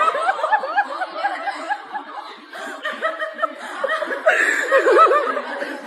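Many people laughing at once, overlapping chuckles and snickers that start suddenly and go on throughout.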